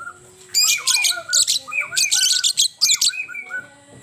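A bird calling in several quick bursts of rapid, harsh, high-pitched notes, with softer gliding whistles between them.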